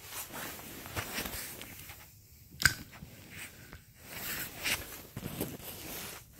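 Rustling and handling noise as the phone is moved about, with fabric brushing, and a single sharp knock about two and a half seconds in.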